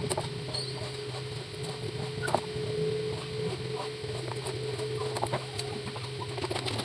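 Table fan motor running with a steady hum and a steady higher tone, with scattered light clicks.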